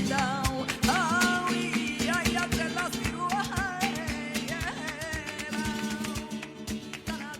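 Flamenco music: a cante singer holds long, wavering, ornamented lines over flamenco guitar with rapid strummed strokes, gradually getting quieter.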